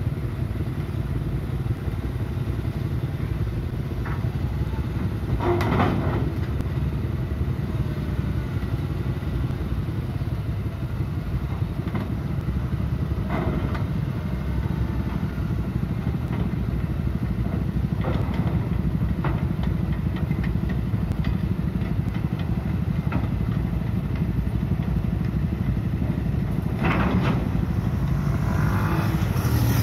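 Hitachi EX130 amphibious excavator's diesel engine running steadily as the machine crawls off a low-loader trailer on its pontoon tracks, with several metallic clanks, the loudest about six seconds in and near the end.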